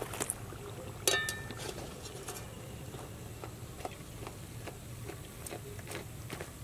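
A single sharp metal-utensil clink about a second in that rings briefly, followed by scattered faint clicks and taps over a low steady hum.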